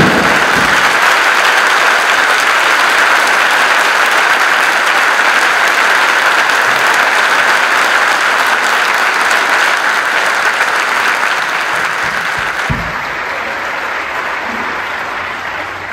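A large crowd applauding in a basketball arena, long and steady, slowly dying down over the last few seconds.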